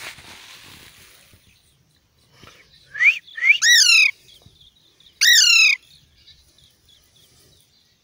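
Young Alexandrine parakeet giving loud, harsh calls: two short ones about three seconds in, running straight into a longer one, then a single longer call a little after five seconds.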